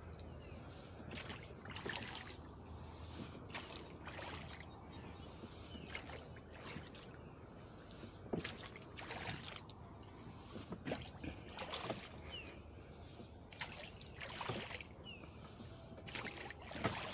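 Oars of a small wooden rowboat working the water, with faint irregular splashes and drips about every half second to a second over a low steady wash.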